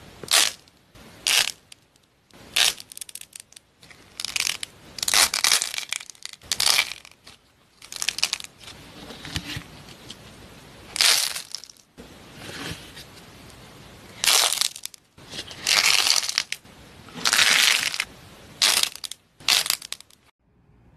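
Hands squeezing and tearing soft white marshmallow-shaped slime cubes: about fifteen separate crisp crunching bursts, each under a second, stopping abruptly near the end.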